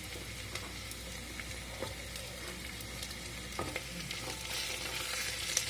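Oil sizzling steadily as onions, green chillies and skin-on potato pieces fry in a pressure cooker pan, with a few light clicks, growing a little louder near the end.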